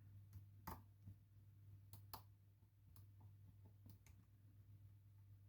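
Faint, irregular clicks of lock-picking tools working inside a Lockwood Twin lock as its pins are probed and set, about eight small ticks over a low steady hum.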